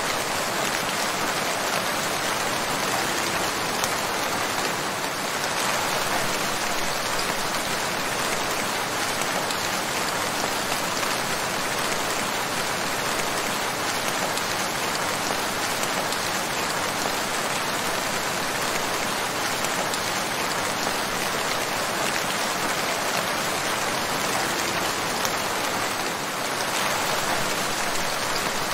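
Rain falling steadily on surfaces: an even, unbroken hiss without thunder.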